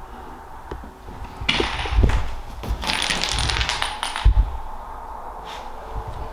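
Footsteps on old wooden floorboards, with two heavy thumps about two and four seconds in, and a stretch of rustling with light clatter in between.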